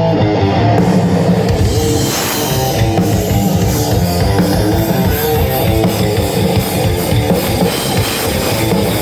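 Live rock band playing an instrumental passage between verses: electric guitars, bass and drum kit, with the cymbals coming in about a second in.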